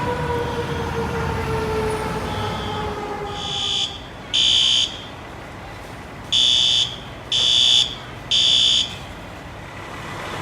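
Fire truck siren winding down, its pitch falling slowly until it fades out about four seconds in, over the low rumble of the apparatus engine. Then a building fire alarm horn sounds in the temporal-three evacuation pattern: groups of three half-second blasts a second apart, with a longer pause between groups.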